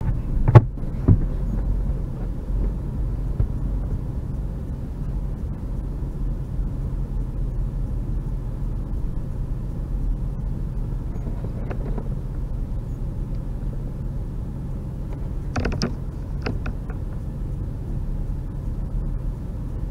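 Steady low rumble of a car driving over a rough, sandy unpaved track, heard from inside the cabin. A few sharp knocks and creaks come through: a loud one about half a second in, another just after, and a short cluster of clicks about sixteen seconds in.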